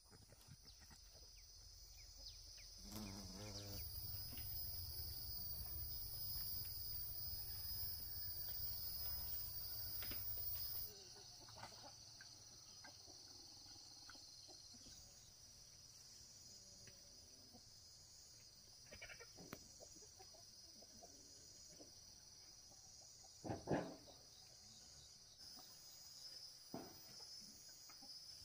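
Insects chirping steadily in a high-pitched drone, with occasional short bird calls. A low rumble starts a few seconds in and cuts off suddenly about eight seconds later. A single sharp knock near the end is the loudest sound.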